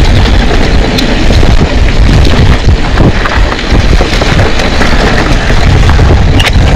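Wind buffeting the mic of a mountain biker's camera during a ride, a loud low rumble, with scattered knocks and rattles from the bike over the trail and a sharper knock near the end.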